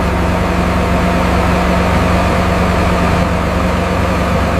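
A heavy diesel engine idling steadily with a deep, even hum. It starts and stops abruptly, like an added vehicle sound effect for a road roller.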